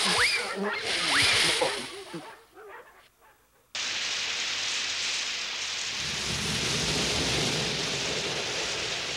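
A brief noisy cartoon commotion with a few sliding squeals fades out. About four seconds in, the car wash's water jets start abruptly as a steady spraying hiss, and a low rumble from the wash joins a couple of seconds later.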